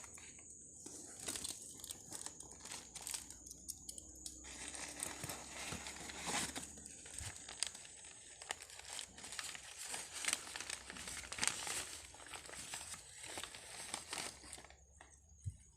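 Packaging crinkling and rustling irregularly as it is handled and unwrapped, with a few sharper crackles.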